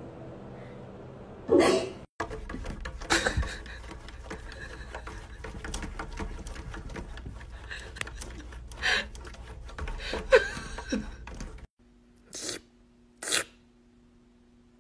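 A cat pawing and scrabbling at a window pane: scattered short scratchy taps over a low rumble. After a cut, two short noisy bursts sound over a steady hum near the end.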